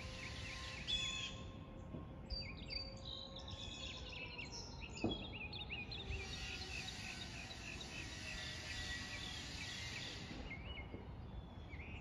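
Small birds chirping over and over, with the faint steady tone of a Federal Signal Eclipse 8 outdoor warning siren slowly falling in pitch as it winds down. A sharp click comes about five seconds in.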